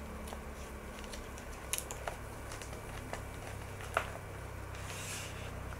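A few light clicks and taps, with a brief soft rustle near the end: items from the box being handled. A steady low hum sits underneath.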